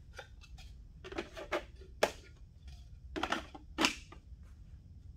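A few short sharp clicks and knocks from hands handling the wooden console box and its parts, the loudest about two seconds in and again just before four seconds, over a low steady background rumble.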